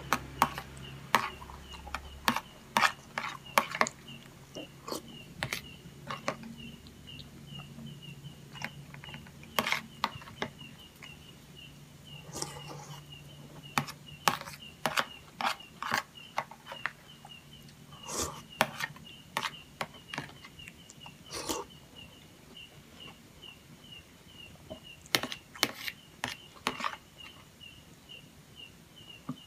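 A metal spoon clinking and scraping on a plastic plate in irregular, sharp knocks while scooping rice soaked in coconut milk, with close-miked eating sounds. A faint high chirp repeats several times a second behind it.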